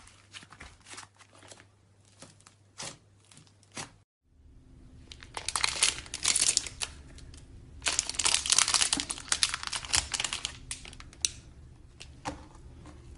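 Slime being squeezed and poked by hand, crackling and popping: a few scattered clicks at first, then, after a cut about four seconds in, two long spells of dense crackling.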